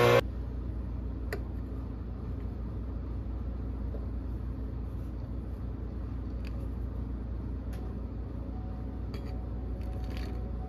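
An espresso machine's pump hum cuts off abruptly at the very start. Then a steady low hum with a few faint clicks and clinks, as espresso is poured from a small steel pitcher over ice in a glass.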